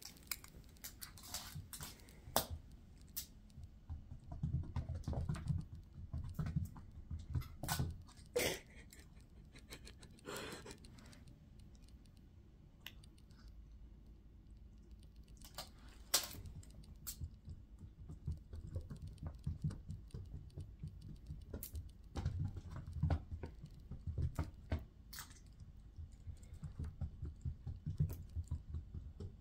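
A cat's paws and claws tapping and scrabbling on a hard wood-plank floor as it chases a wand toy: scattered sharp clicks with clusters of soft thumps.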